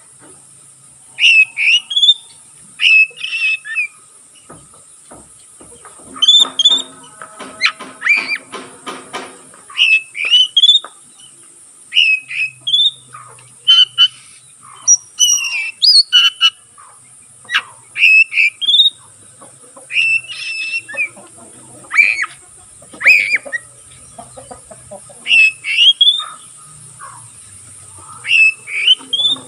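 Oriental magpie-robin singing in full voice: loud, short whistled phrases of rising notes, repeated every second or two, over a steady faint high hiss.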